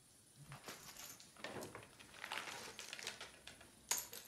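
Quiet room with faint scattered rustles and small clicks from people shifting around a table, and a sharper click near the end.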